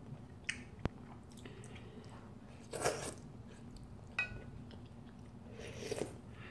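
Noodle-eating sounds: two loud slurps of ramyeon noodles, about three seconds in and near the end, with chewing between them. A few sharp clicks come early and past the middle.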